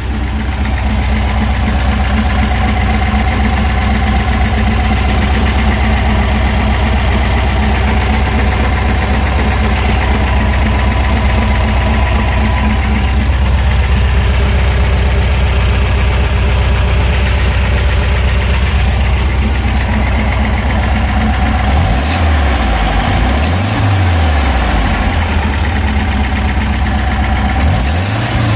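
Volkswagen Beetle's air-cooled flat-four 1679 cc dual-port engine idling steadily, then revved up briefly three times in the last several seconds. The owner suspects it of rod knock.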